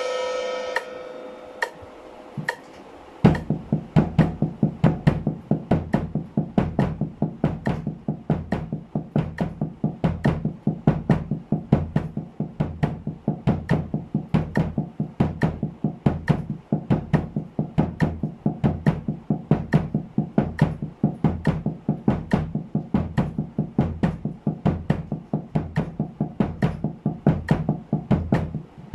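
Drumsticks playing an even run of sixteenth-note doubles on a towel-muffled snare drum, with bass-drum kicks at 70 beats a minute. The playing starts about three seconds in, after a brief ringing tone and a few faint clicks.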